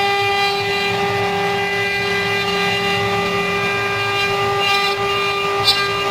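CNC wood-carving router's spindle motor running with a steady, unchanging whine rich in overtones, with a brief sharp click near the end.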